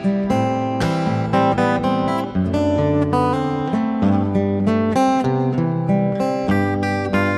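Solo acoustic guitar played instrumentally, plucked notes and chords over a moving bass line in an improvised arrangement.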